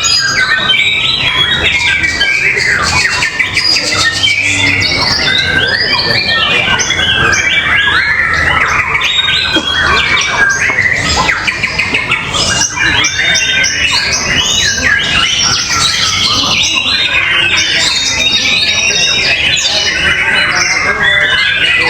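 Caged contest songbirds singing without pause, a dense tangle of varied whistles, chirps and mimicked calls.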